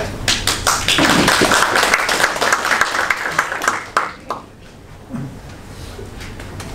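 Audience applauding for about four seconds before it stops, followed by a few faint knocks.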